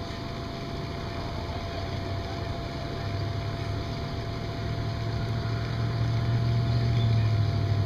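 Low motor drone running steadily and growing louder toward the end, with a faint steady whine above it.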